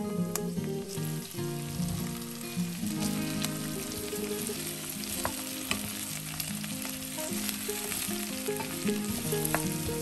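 Diced pumpkin sizzling in hot olive oil with softened onion in a stainless steel pot, with scattered clicks and scrapes as a wooden spoon stirs it. Soft guitar music plays underneath.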